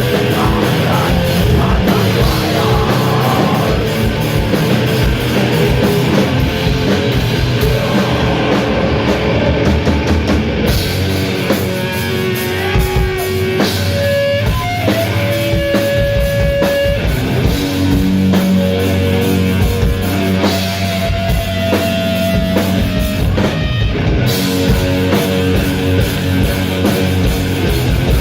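Sludge metal band playing live and loud: heavily distorted guitars, bass and drums. Through the middle stretch the playing thins to long held notes over the rhythm before the full band returns.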